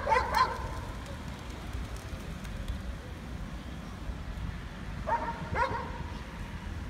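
A dog barking: a pair of short barks at the start and another pair about five seconds in, over a steady low rumble.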